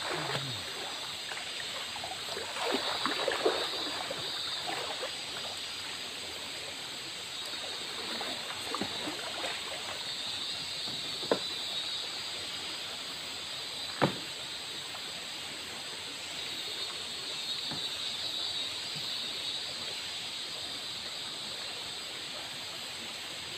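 Shallow river flowing steadily over rocks, a constant rushing of water, with a few light splashes early on and two sharp clicks, one about eleven seconds in and a louder one about fourteen seconds in.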